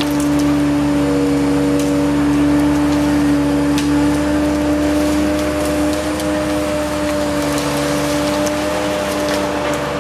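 DOLL Tree Trimmer tree-felling crane running: a steady engine and hydraulic hum with a constant tone as its boom moves the saw head through the treetops. A few faint clicks sound over it.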